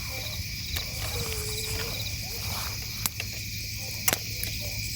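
Night insect chorus, crickets chirping in steady high-pitched layers, with a few sharp clicks about three and four seconds in.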